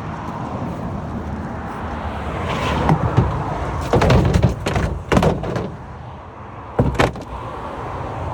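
A run of sharp bangs and knocks, about four clusters in the middle stretch, over a steady low rumble. They are typical of vehicle doors or a tailgate being opened and shut.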